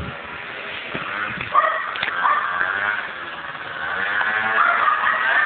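Aprilia SR 50 R scooter's 50cc two-stroke engine revving with rising throttle blips, growing louder over the last couple of seconds as it comes closer.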